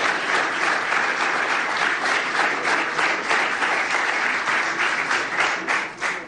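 Audience applauding: dense, steady clapping that dies away just before the end.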